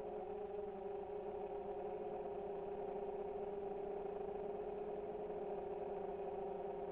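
Small drone's motors and propellers humming steadily at an even pitch.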